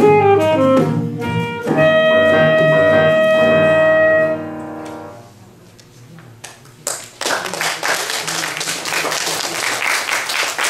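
Small ensemble of saxophone, piano and acoustic guitars playing a closing phrase and ending on a long held chord that fades away about halfway through. A couple of seconds later an audience starts applauding and keeps clapping.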